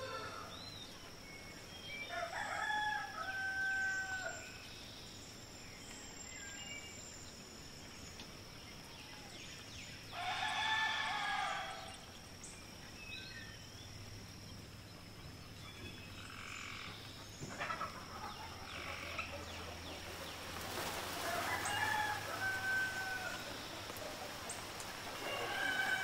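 Rooster crowing several times, each crow a drawn-out pitched call, the loudest about ten seconds in.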